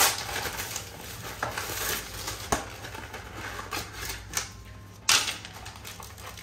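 Plastic film wrapper crinkling and tearing as it is stripped off an instant ramen bowl, followed by scattered clicks and crackles as the bowl's white plastic lid is handled and pulled off, with a louder crackle about five seconds in.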